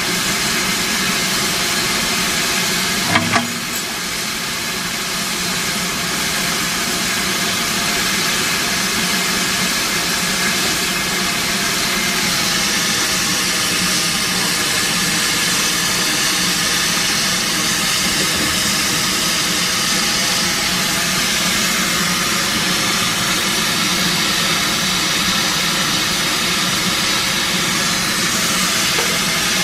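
Steam locomotive standing at the platform, its steam hissing steadily. Two sharp metallic knocks come close together about three seconds in.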